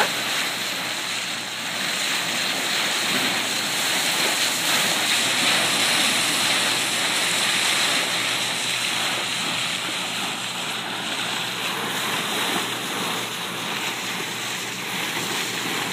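Steady rush of sea water breaking along the bow of a ship steaming at about 11 knots, mixed with wind on the microphone.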